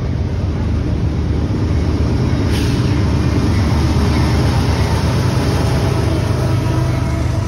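BNSF freight train's diesel locomotives passing close by, a loud steady low engine rumble mixed with wheel and rail noise.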